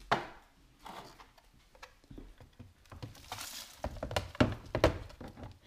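Dirt and debris from a battery sweeper being emptied into a plastic trash can: a knock at the start, a short rustle of tipping debris a little past three seconds in, then several knocks and thumps as things are tapped against the bin.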